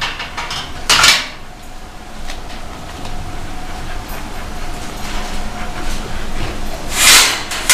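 Metal clatter of a large stainless steel bowl and metal kennel fencing: a sharp knock about a second in, light knocks after, and a louder rattle near the end.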